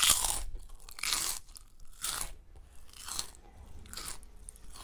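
Crunching from a hand working small pieces of crunchy food in a bowl, five times, about a second apart.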